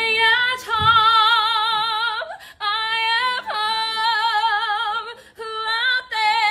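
A woman singing unaccompanied: long held high notes with a wide, even vibrato, broken by a few short breaths.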